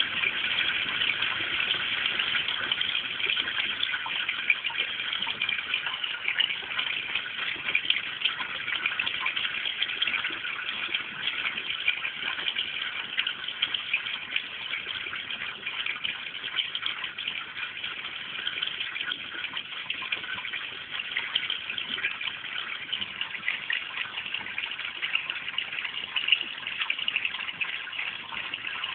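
Running water splashing steadily into a garden koi pond, an even rushing sound.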